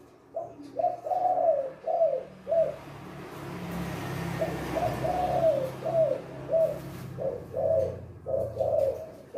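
Spotted dove (tekukur) cooing in its 'kuk 2' song: two runs of short, repeated coo notes with a pause between. A low rumble swells under the cooing in the middle and fades.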